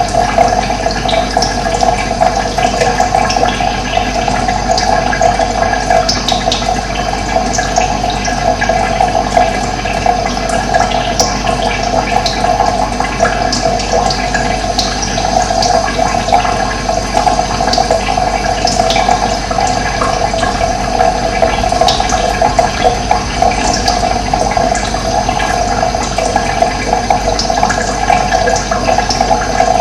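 Running water rushing steadily, with brief high bird chirps scattered through.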